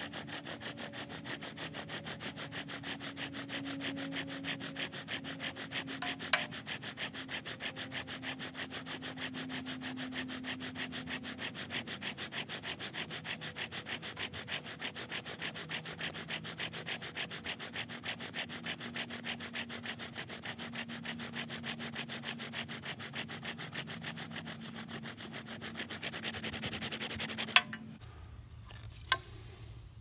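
Bow drill burn-in: an oak spindle, spun back and forth by a bow under a plastic bearing block, grinding into an oak fireboard in a steady rhythm of strokes. The drilling stops about two seconds before the end, followed by a couple of sharp knocks.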